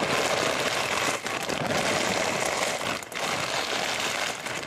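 A plastic bag of garlic bagel crisps being crushed by hand: the bag crinkles and the crisps crunch and crackle.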